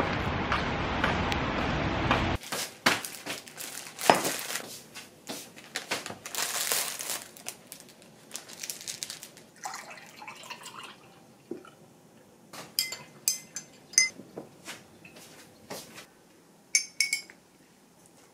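Street traffic noise for the first couple of seconds, then a plastic bag crinkling as a sugar-coated doughnut is handled onto a ceramic plate. Later come several sharp, ringing clinks of ceramic dishes and glass being set down.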